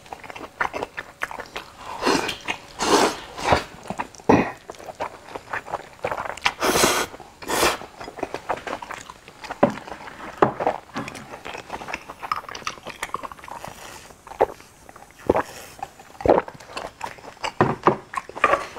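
Close-miked chewing and wet mouth smacks of a person eating noodles topped with crayfish tails, in many short irregular smacks, with two longer slurps about seven seconds in.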